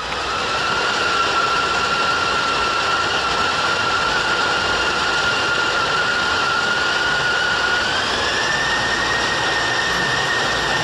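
CRM 18DSS 18-cylinder marine diesel engine running loud in the engine room, with a steady high whine over the engine noise. The whine steps up in pitch about eight seconds in as the engine speed is raised.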